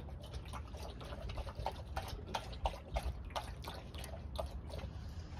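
A dog lapping water from a plastic turtle-shaped pool: quick, wet laps at about three a second.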